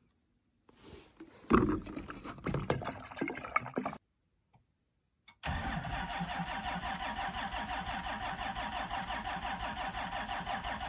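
Knocks and handling noise from the additive bottle at the fuel filler. Then, about five seconds in, a 12-valve Cummins 5.9 L inline-six diesel is cranked by its starter, turning over with a steady, even rhythm and never firing: the summer diesel has gelled in the cold.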